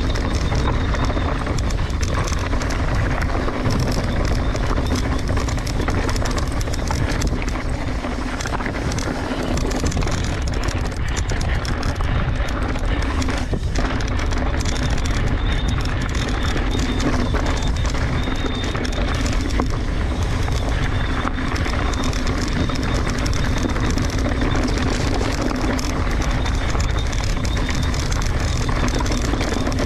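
Mountain bike descending a rocky dirt fire road at speed: tyres crunching over gravel and loose rock, with a constant clatter of knocks from the bike over the bumps and a steady rush of wind.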